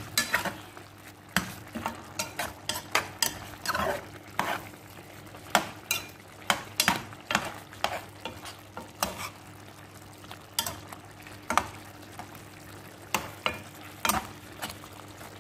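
A metal spoon scraping and knocking irregularly against a pan, stirring chicken adobo pieces in a sauce that sizzles as it simmers down to thicken. A faint steady low hum runs underneath.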